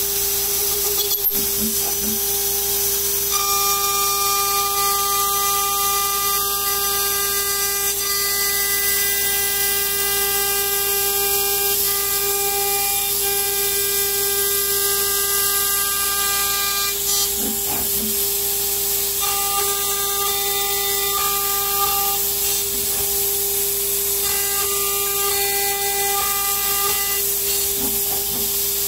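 CNC router spindle running with a steady high whine while a pointed chamfer bit cuts aluminium plate. A shriller ringing cutting tone comes in for three stretches as the tool engages the metal. A steady hiss from the spray nozzle aimed at the cut runs under it.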